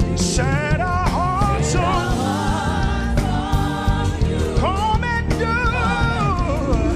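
Live gospel worship music: sung vocals over a band with a strong bass, the singing wordless or unclear to the recogniser.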